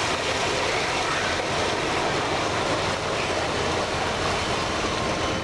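Giant mining haul truck running steadily while its raised bed tips and a load of rock slides and pours out.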